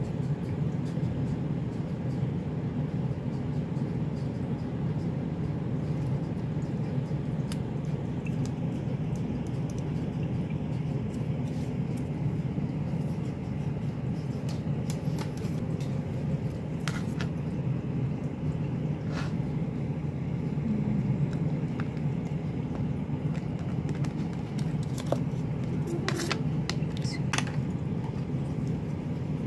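Steady low background hum, with a few light clicks and taps from craft supplies being handled on a cutting mat, most of them near the end.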